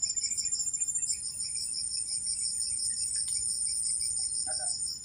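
A chorus of insects, cricket-like, chirping in fast, even, high-pitched pulses, several voices at different pitches overlapping steadily. A couple of faint ticks and a short, lower call come near the end.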